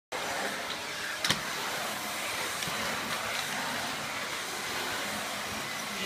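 Vacuum cleaner running steadily, with a sharp knock about a second in.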